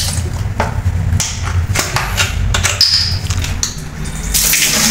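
Plastic bottle being handled, with scattered clicks and knocks over a low handling rumble. Near the end a tap starts running: a steady rush of water.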